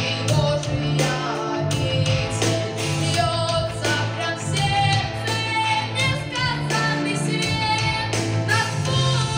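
Children's folk-song ensemble singing a Russian folk-style song through stage amplification, over a backing track with a bass line and a steady beat.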